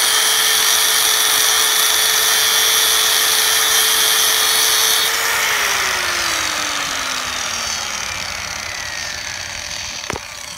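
Electric angle grinder grinding a metal bar with a steady high whine; about five seconds in the grinding stops and the motor winds down, its pitch falling slowly as the disc spins down. A single sharp knock near the end.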